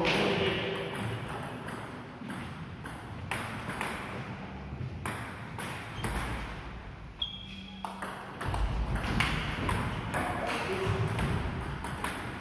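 Table tennis ball clicking off the bats and the table in sharp, irregular clicks.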